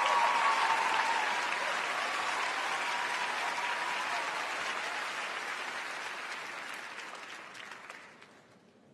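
Large studio audience applauding, tapering off and dying away near the end.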